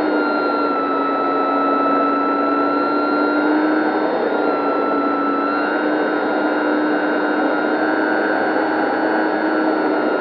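A Dynam 3720-650kV brushless electric motor and propeller whining steadily in flight, heard close-up from a camera mounted on the plane, over a rushing noise. The pitch dips and rises slightly a few times.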